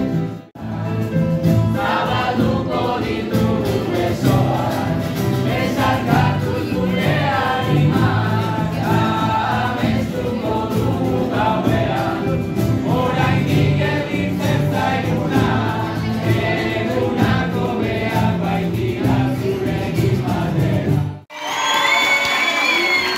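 A group of young voices singing a song together over acoustic guitars. About 21 seconds in, the song breaks off abruptly, and clapping and voices follow.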